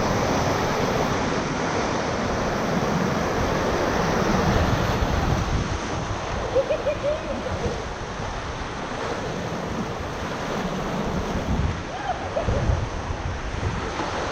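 Whitewater rapids rushing steadily around a raft, with gusts of wind buffeting the microphone.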